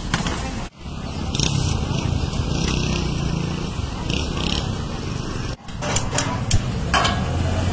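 Outdoor street ambience: traffic noise and voices in the background, broken twice by brief sudden dropouts. A few sharp clicks come near the end.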